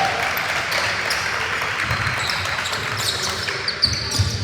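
Indoor basketball game: a basketball bouncing on the court a few times, with short high sneaker squeaks in the second half, over a steady gym din.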